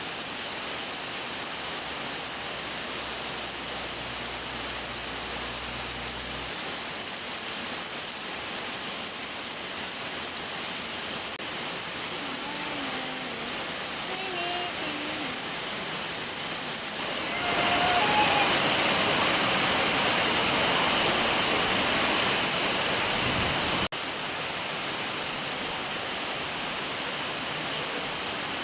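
Steady rain, an even rushing hiss. It grows louder about 17 seconds in and drops back abruptly about 24 seconds in.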